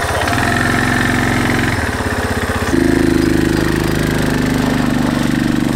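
Bashan 250 quad bike's engine running, its speed changing in steps a few times, and louder from about three seconds in.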